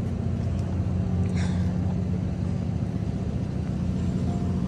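Steady low engine hum from a parked box truck running, mixed with wind rumbling on the microphone.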